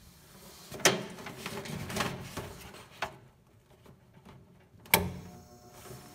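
Thick power cords being handled and plugged into a power strip, with four sharp plastic clicks and knocks; the loudest comes about five seconds in, over rustling cable noise.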